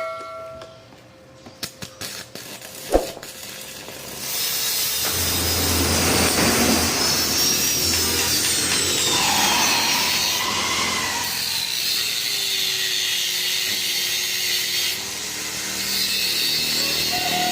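A power tool runs steadily under load from about four seconds in, its pitch gliding down and back now and then. Before it, a metallic ring fades out in the first second and there is a single sharp knock.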